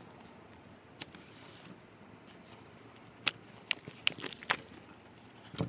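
Hardback and paperback books shifting and knocking together in a tall armful, a handful of light knocks and rustles over faint outdoor background, the loudest just before the end.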